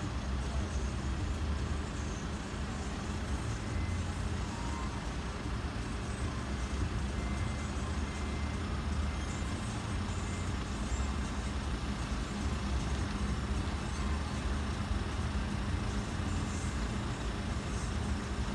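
Steady road traffic at an intersection: a low, even engine rumble from vehicles running at the lights.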